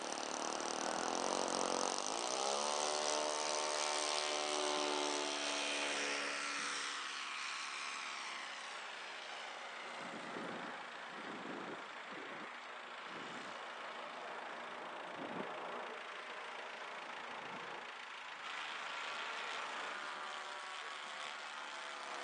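Laser 70 four-stroke glow engine of a radio-controlled scale FW 190 model in flight. The note rises about two seconds in, falls in pitch as the plane passes and draws away, and climbs again near the end.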